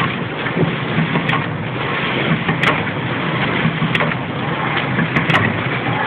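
Horizontal flow-wrap packaging machine running, a steady mechanical noise with a regular low pulse about every two-thirds of a second and a few sharp clicks.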